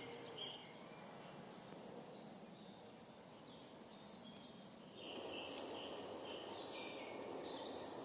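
Faint woodland birdsong, scattered short chirps over a quiet background, with a steady rustling noise coming up about five seconds in.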